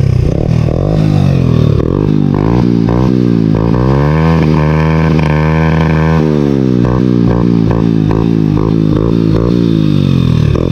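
Hero Honda Splendor's single-cylinder four-stroke engine, loud through an M4 aftermarket exhaust with the dB killer removed, revved in repeated quick blips. About four seconds in it is held high and steady for about two seconds, then falls and goes back to short blips, about two a second.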